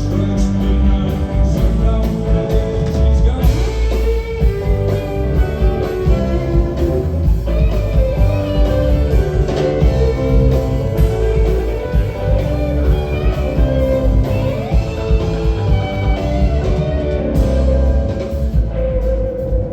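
Live rock band playing, with electric guitar to the fore over the full band.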